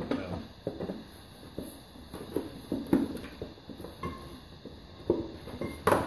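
Irregular knocks, clinks and scrapes of hands working the spare wheel and its plastic cover as they are turned and pulled free from under the car.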